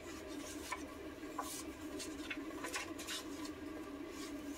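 Paper pages of a handmade junk journal being turned and handled by hand: faint, scattered short rustles and light paper taps.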